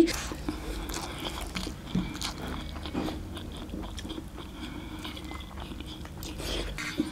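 Two people eating mutton leg pieces with rice and curry by hand: chewing, biting and tearing meat, heard as irregular small clicks and smacks.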